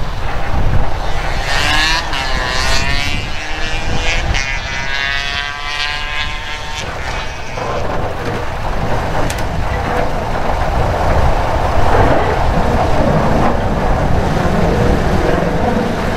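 Vulcan Foundry 0-4-0 diesel shunter running with a low rumble as it approaches, pulling two old tube carriages, louder in the second half as it draws near. A wavering whine comes and goes over the first half.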